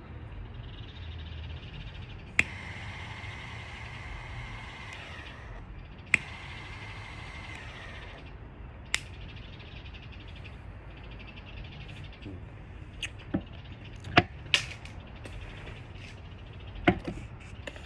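Butane torch lighter clicked on, its jet flame hissing with a thin steady whistle for a few seconds while lighting a cigar, then clicked on again for about two seconds more. After that come several sharp clicks and knocks.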